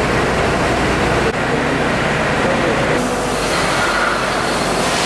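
Steady, dense mechanical noise of machinery running in a factory hall, changing abruptly twice, about a second and a half in and again about three seconds in.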